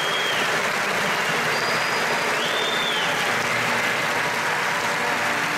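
Large audience applauding steadily in a concert hall, with a couple of brief high whistles over the clapping.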